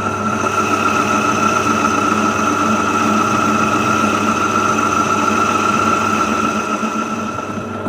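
Metal lathe running while turning aluminium: a steady mechanical hum with a strong, steady high-pitched whine over it.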